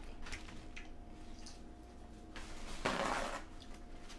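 Small wet clicks and smacks of eating a seafood boil with the hands. About two and a half seconds in there is a brief rustle of a paper towel, the loudest sound, as she wipes her face.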